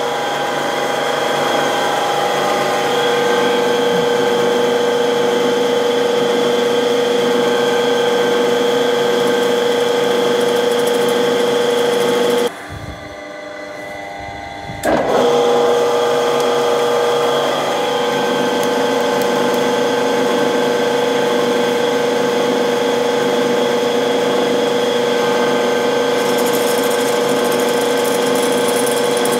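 Milling machine spindle running steadily while an 8 mm drill bores out a damaged cylinder-head stud hole for a thread insert. The machine stops about twelve seconds in and starts again a couple of seconds later.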